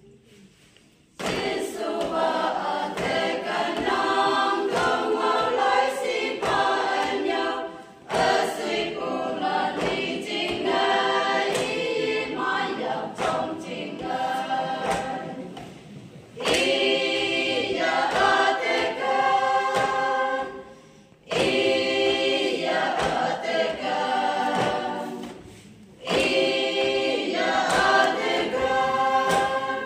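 Women's group singing a cappella in harmony, starting about a second in and going in phrases with short breaks between them, over a running patter of taps and knocks on the tables in front of them.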